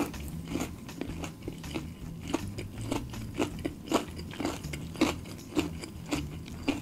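Close-miked chewing of crispy fried chicken, with irregular crunches of the coating about two or three times a second.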